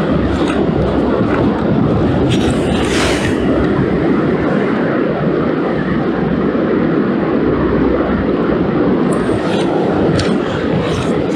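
Wind buffeting the microphone: a steady, loud low roar, with a few brief clicks of handling about two to three seconds in and again near the end.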